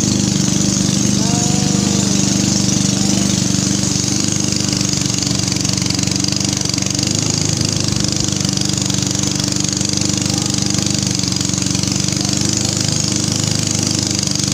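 Small river boat's engine running steadily at speed, a continuous even drone with a steady hiss over it.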